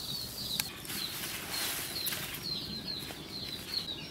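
Oil sizzling gently around a paste frying in a wok, with small birds chirping quickly and over and over in the background. A couple of sharp clicks, one under a second in and one about two seconds in.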